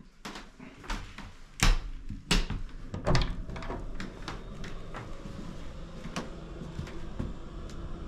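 A string of sharp knocks and clacks, the loudest three in the first few seconds, then lighter clicks over a steady low hum.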